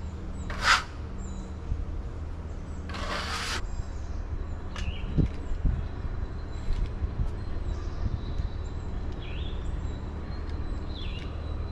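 Wood-Mizer LT35 portable sawmill engine running steadily at idle, with a brief hiss about three seconds in and a few low knocks near the middle.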